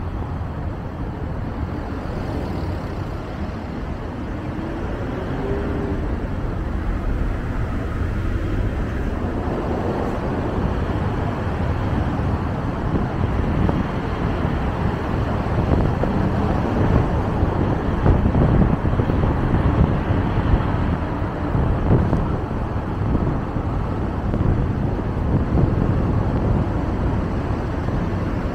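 Car driving on city roads: steady road and tyre noise with a low engine hum, growing a little louder toward the middle.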